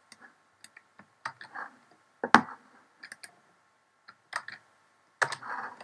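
Typing on a computer keyboard: irregular keystroke clicks, with one louder click a little past two seconds in.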